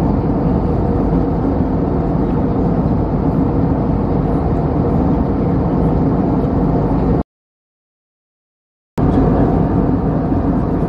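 Steady jet airliner cabin noise: the low drone of the engines and the airflow heard inside the passenger cabin in flight. About seven seconds in it breaks off into dead silence for under two seconds, then resumes unchanged.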